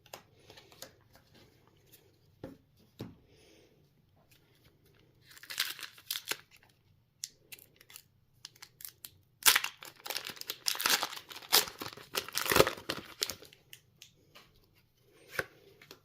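Foil wrapper of a Pokémon trading-card booster pack being torn open and crinkled: a burst of ripping and rustling about five seconds in, a longer, louder stretch from about nine to thirteen seconds, and a short crinkle near the end.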